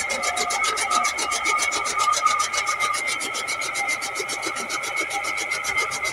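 Tractor-driven toka (chaff cutter) running, its blades chopping green fodder as it is fed in, with a fast, even rhythm of cutting strokes over a steady mechanical whine.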